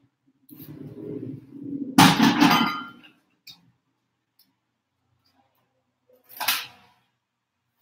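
Kitchenware being handled on a counter: a low rumbling slide, then about two seconds in a loud clatter of hard items clinking and ringing for about a second, and one more clink with a short ring near the end.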